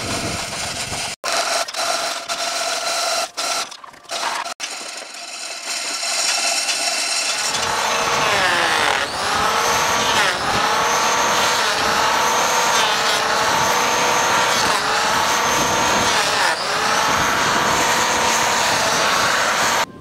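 Handheld electric planer cutting along an oak beam. Its motor runs loudly from about seven seconds in, the pitch sagging and recovering about every two seconds as the blade bites into the wood; before that come short stretches of a steady whine that cut off abruptly.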